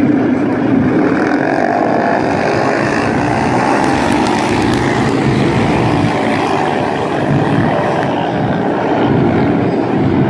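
Engines of a field of small speedway sprint cars running around a dirt oval: a loud, continuous drone with no breaks.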